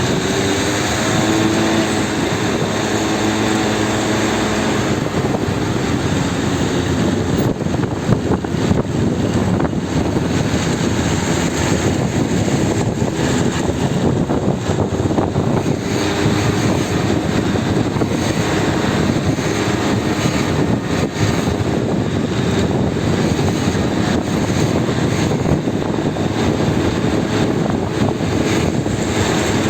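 Steady rushing noise of strong wind and a rough, heavy sea breaking along the shore.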